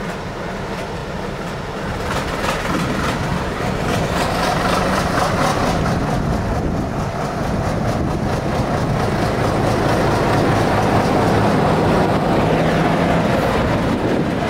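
A train running past on a rail line, growing louder over the first two seconds and then staying loud and steady.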